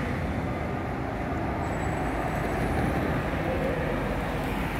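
Steady road traffic noise, with vehicles driving past.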